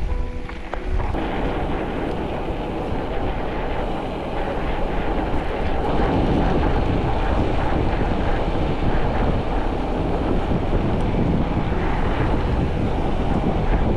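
Wind buffeting the microphone: a loud, rough rushing noise that thickens about a second in and then holds steady.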